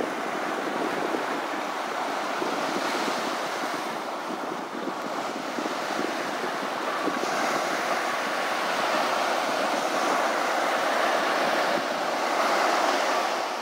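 Ocean surf washing onto a beach: a steady rush of waves, with some wind.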